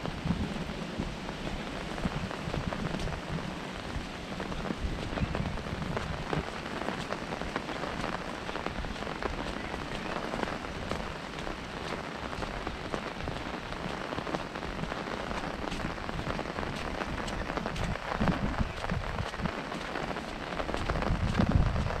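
Steady rain pattering on an umbrella held overhead, a dense stream of fine drop ticks. Wind buffets the microphone with a low rumble that grows stronger near the end.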